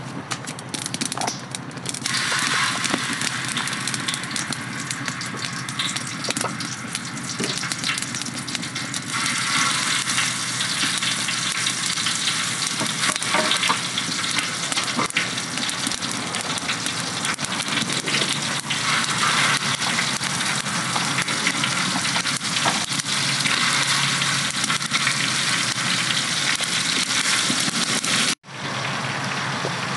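Burger patties sizzling as they fry in hot oil in a large shallow steel pan over a wood fire. The sizzle starts about two seconds in, grows louder around nine seconds in as more patties go in, and cuts off abruptly near the end before coming back.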